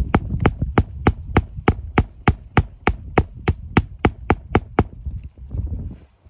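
Hammer driving roofing nails into a replacement asphalt shingle, with sharp, evenly paced strikes about three a second that stop about five seconds in.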